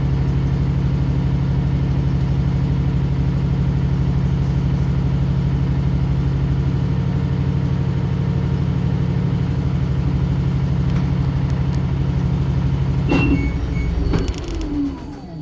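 LG top-loading washing machine spinning its drum at high speed in the spin cycle: a loud, steady motor hum. About 13 seconds in there is a sharp click, and the motor's pitch then falls as the drum winds down and the sound fades.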